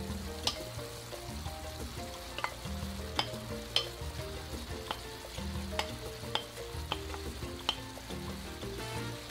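Chopped green beans tipped from a plate into a pan of frying tomato and onion, sizzling, while a wooden spoon knocks and scrapes on the plate in sharp clicks about nine times. Soft background music plays underneath.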